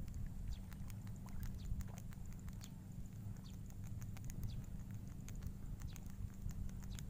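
Outdoor ambience by the water: a steady low rumble with many scattered short clicks and faint, quick falling chirps throughout.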